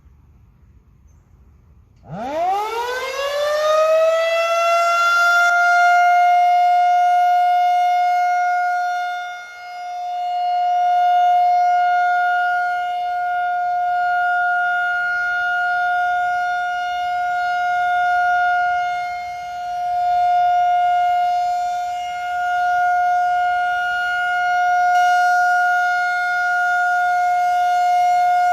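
Federal Signal 2001-SRN DC "Roundback" outdoor warning siren starting up about two seconds in, its pitch winding up quickly and settling on a steady 750 Hz alert tone. The tone holds, swelling and fading in loudness as the siren slowly rotates; this is the monthly test of the 3-minute steady alert signal.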